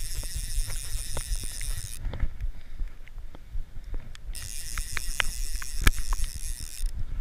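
Wading through river water: splashing and sharp dripping clicks close to the microphone over a low rumble. A loud hiss cuts out about two seconds in and comes back for a few seconds near the end.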